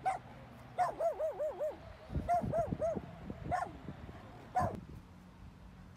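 A small dog barking in short, high yaps: one at the start, a quick run of about five about a second in, four more a second later, then two single barks.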